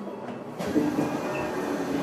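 Running noise inside a Tokyo Metro 02 series subway car with upgraded VVVF permanent-magnet-motor traction: wheels on rail and motor sound, getting louder about half a second in.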